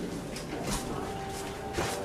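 A few soft footsteps and light rustling, irregularly spaced.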